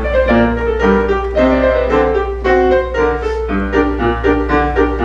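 Piano playing the introduction to a choral song, steady repeated chords in a bouncy rhythm, with a low steady hum underneath.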